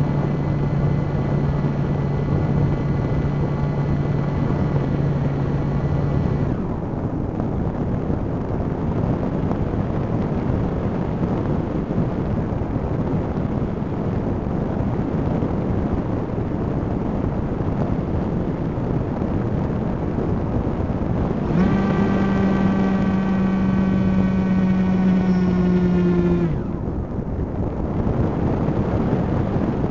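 Camera drone flying, its propellers whining over a steady rush of wind on the microphone. The propeller whine drops out about six seconds in and returns for about five seconds near the end, sagging slightly in pitch before cutting off.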